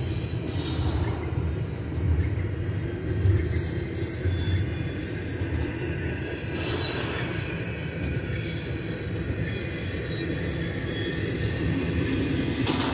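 Loaded double-stack container well cars rolling past on a moving freight train, a steady low rumble of steel wheels on rail.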